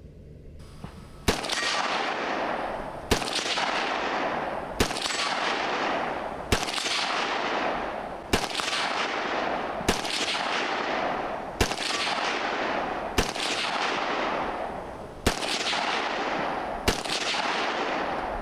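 Semi-automatic AR-style rifle fired in slow, aimed single shots at distant steel targets, about ten shots roughly every one and a half to two seconds. Each shot is followed by a long echo that fades before the next.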